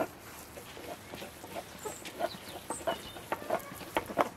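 Chickens clucking: a scatter of short, separate clucks that come more often toward the end.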